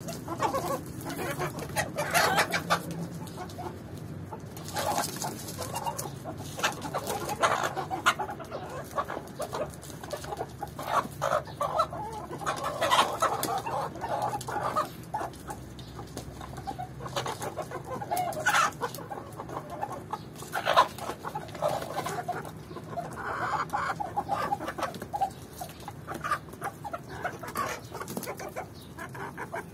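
A flock of Swedish Flower chickens clucking and calling, with many short overlapping calls and a few louder ones now and then.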